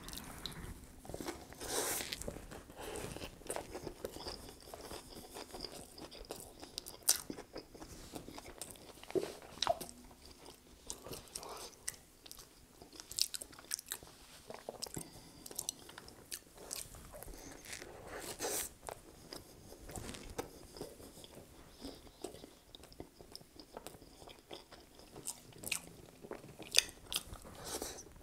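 A person chewing and biting food close to the microphone, with wet mouth clicks and smacks coming at irregular moments.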